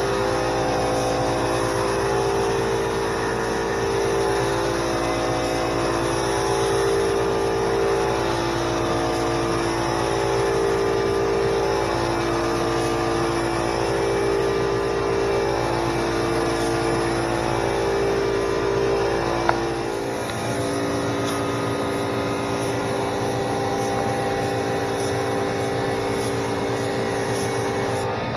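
SprayIT R500 LVLP gravity-feed spray gun hissing with air in repeated passes of about two seconds each, over a small 21-gallon air compressor running. A click comes about twenty seconds in, and the compressor's deep hum stops right after it.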